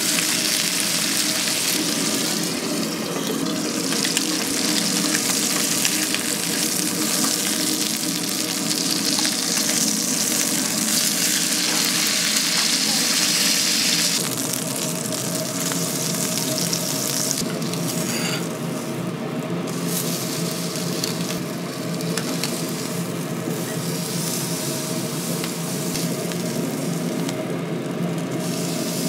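Chicken sizzling in hot oil in a frying pan, a steady crackling hiss that eases somewhat about halfway through.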